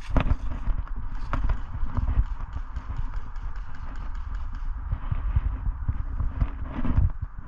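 Footsteps of a person running on the ground: a quick, irregular run of low thuds, with rustling and knocking of gear and the body-worn camera.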